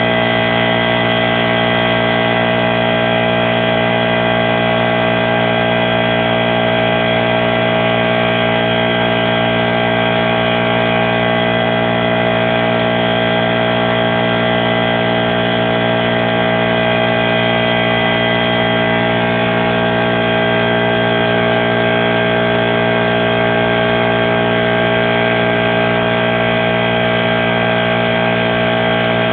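A motor or engine running steadily at one unchanging speed, a constant drone with a strong hum.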